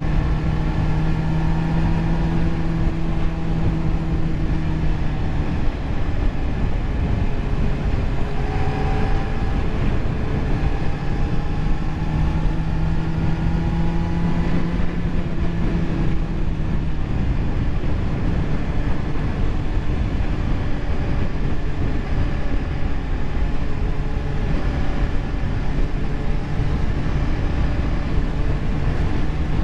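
Sport motorcycle's engine running at a steady cruise, its note drifting slightly up and down in pitch, over a constant rush of wind and road noise.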